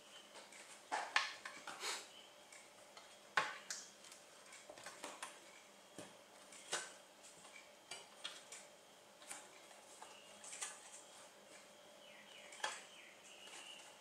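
Aluminium bottom cover of an Asus UX32VD laptop being prised off by hand: scattered sharp clicks and snaps as its edge clips let go, with light knocks of the metal panel. About ten clicks at uneven gaps, the loudest about a second in and at about three and a half seconds.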